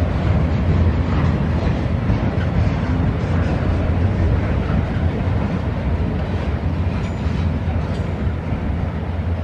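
Heavy freight train rolling past, its loaded flatcars' steel wheels rumbling steadily on the rails.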